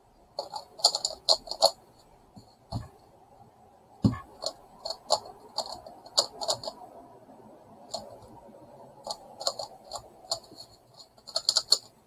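Megaminx puzzle being turned fast by hand: bursts of rapid plastic clicks as its faces rotate, with a couple of dull knocks about three and four seconds in.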